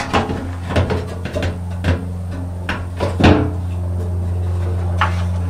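Scattered knocks and clanks of metal mounting parts being handled and set in place, the loudest a little past three seconds in, over a steady low hum.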